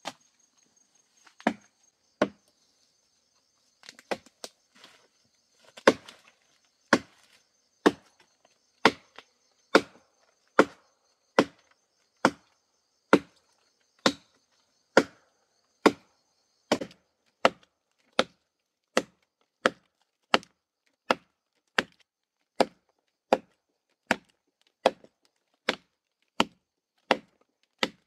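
Machete chopping into a fallen log: sharp strikes of the blade into the wood, a few scattered at first, then steady at about one every 0.8 seconds. A thin, high insect buzz runs under the strikes and stops a little past halfway.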